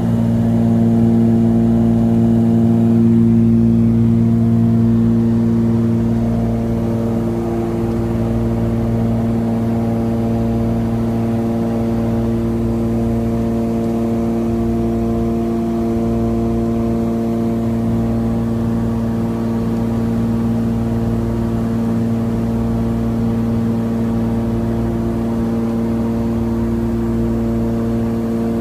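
Cessna 414A Chancellor's twin turbocharged piston engines and propellers running steadily in high-altitude cruise: a constant low hum made of several steady tones, with no change in pitch.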